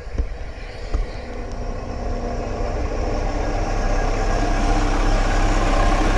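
Tsugaru 21 diesel railcar rolling slowly to a stop, its diesel engine running with a steady low rumble that grows louder as the car draws level. Two sharp knocks in the first second.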